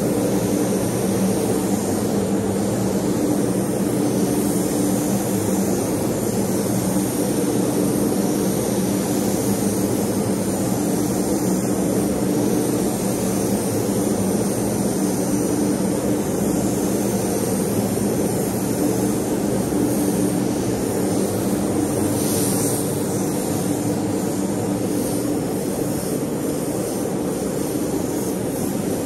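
A power tool running steadily without a break: a constant motor hum under a broad hiss.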